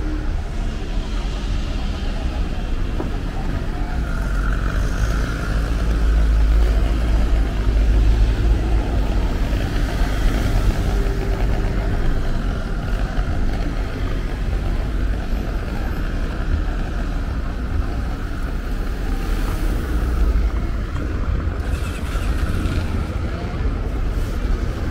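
City street traffic at an intersection: cars passing with a steady low rumble that swells about a quarter of the way in.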